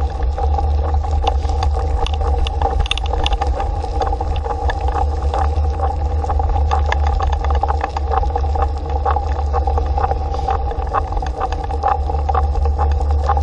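Dog scooter rolling fast over a dirt road: a steady low rumble of tyres and wind with a constant hum, peppered with quick crunching and rattling clicks from the wheels and frame.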